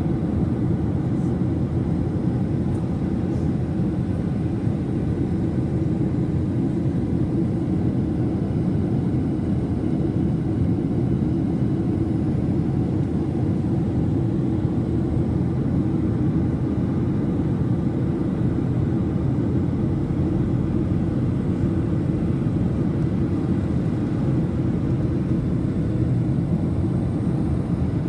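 Steady low rumble of a jet airliner's engines and rushing air, heard inside the passenger cabin.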